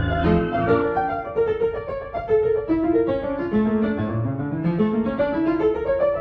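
Background piano music: a melodic line of single notes stepping down and back up, with a quick rising run near the end.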